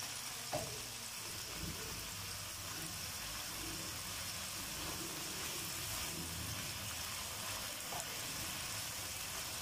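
Chicken pieces sizzling steadily in hot oil in a nonstick wok as a slotted spatula stirs them, the chicken frying in the oil it has released. Two light knocks, one about half a second in and one near the end.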